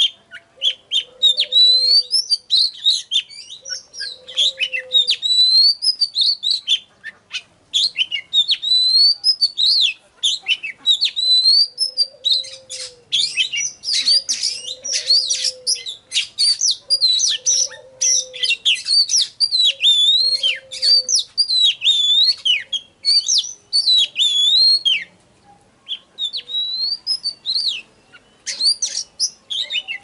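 Oriental magpie-robin singing a fast, almost unbroken run of varied whistled phrases that sweep up and down, with a short pause about 25 seconds in. A lower, short falling note repeats about every second and a half through the first two-thirds.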